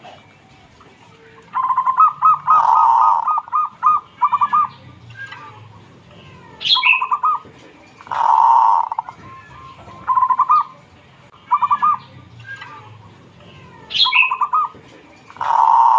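Zebra dove (perkutut) cooing, repeating its rolling song of quick staccato notes in phrases a few seconds apart. Short, higher chirps come in twice.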